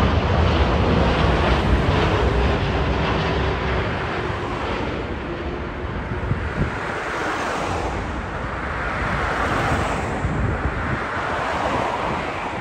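Jet noise from a Boeing 787 airliner passing low on final approach: a loud rushing noise with a faint steady engine tone. It fades over the first few seconds and is mixed with wind buffeting the microphone. A softer rushing noise swells and fades near the end.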